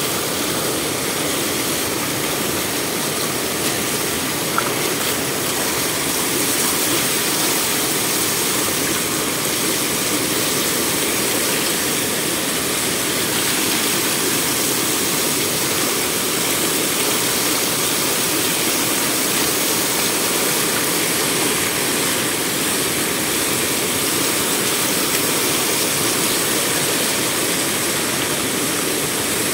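Water pouring steadily over the stone sill of a water gate, heard close up as a loud, even rush.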